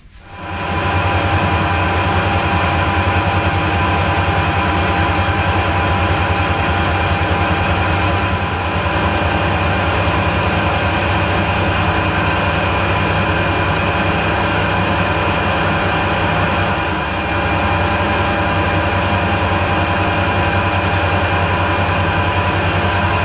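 Harrison 12-inch swing lathe starting up at the very beginning and then running steadily, a loud hum with several held tones, while its tool turns down a steel bar held in the chuck.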